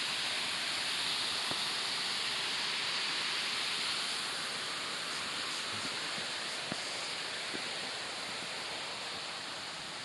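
Steady rushing of the Shihogi Fudo waterfall, growing a little fainter in the second half, with a few faint footfalls on the steps.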